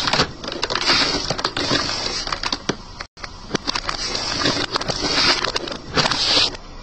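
Aluminium Pepsi cans crushed under a car tyre on a bed of upright nails: crackling and crunching metal with sharp hissing as the pressurised soda sprays out of the punctured cans. The same crush is heard twice, with a brief break about three seconds in.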